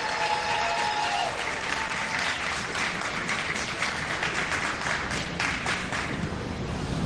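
Arena crowd applauding steadily, dense clapping throughout, with a brief held cheer or shout over it during the first second.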